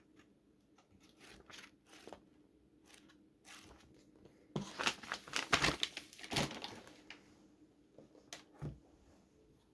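Packaging being handled: a few light taps and clicks, then a couple of seconds of crinkling and tearing about halfway through, followed by a couple of soft knocks.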